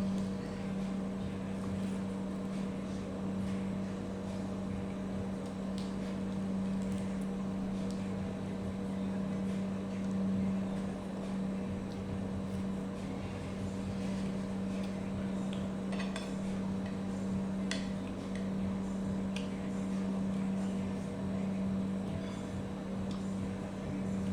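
A steady low electrical hum, with a few light clinks of cutlery and dishes scattered through, clearest in the second half.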